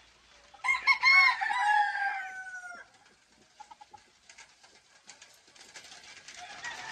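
A game rooster crows once, loud, starting about a second in: a wavering opening drawn out into a long, falling note of about two seconds. From about halfway through, light rain patters. Near the end a fainter crow from another rooster begins.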